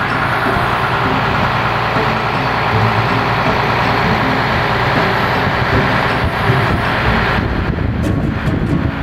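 Ferry engine running steadily under a constant rushing noise.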